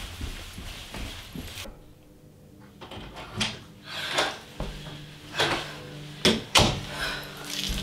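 Footsteps on carpeted stairs, then an interior bedroom door being opened and pushed shut. The knocks grow louder, and the two loudest, close together after about six seconds, are the door banging shut and its latch catching.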